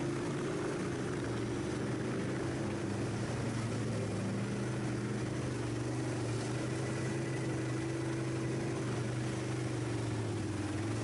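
ATV engine running steadily at low speed, heard from on board the quad, its pitch drifting slightly up and down as the throttle changes.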